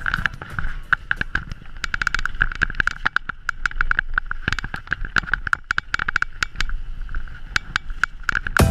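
Mountain bike coasting down a rough trail: the rear hub ticks in a fast, even buzz, over a clatter of sharp knocks from the tyres and frame on the rough ground, with low wind rumble on the microphone.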